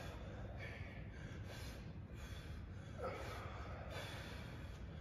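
Faint effortful breathing of a person exercising, with several short, breathy exhales a second or so apart during one-arm overhead weight presses.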